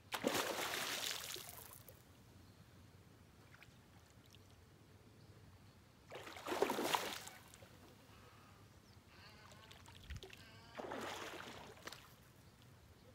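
Hooked fish thrashing and splashing at the surface of a pond while being played on rod and line: three bursts of splashing, right at the start, about six seconds in, and about eleven seconds in.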